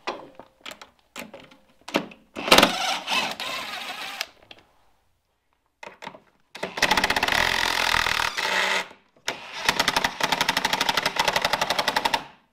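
Cordless impact driver with a socket hammering on tractor fender bolts to remove them: a shorter burst about two and a half seconds in, then two long runs of fast, even rattling impacts with a short break between, the second stopping near the end.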